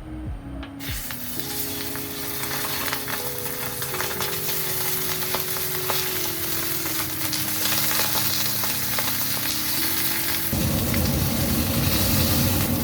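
Skin-on chicken breasts frying in hot oil in a stainless steel pan, a steady sizzle that starts about a second in.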